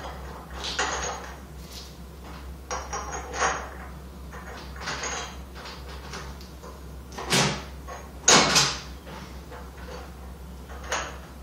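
Scattered clicks and clunks of metal parts and a hand tool as a spoked wheel is fitted and fastened on a go-kart-style rear axle hub, with two louder knocks about seven and eight seconds in. A steady low hum runs underneath.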